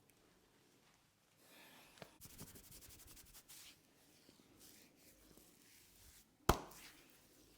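Hands rubbing over hair and scalp during a head massage, with a quick run of light taps early on, then one sharp click about six and a half seconds in.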